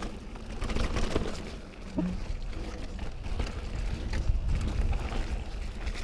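Mountain bike riding downhill over a dirt trail strewn with dry leaves: a steady rumble of tyres and wind on the microphone, broken by rattling knocks from bumps. A camera gimbal's motor gives a short vibrating buzz about two seconds in.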